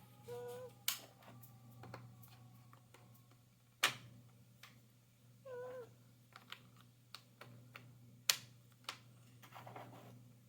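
Jigsaw puzzle pieces clicking and knocking on a table as they are handled and fitted together, a dozen or so sharp taps spread irregularly through the stretch. Two short, squeaky voice sounds break in, one near the start and one about halfway through.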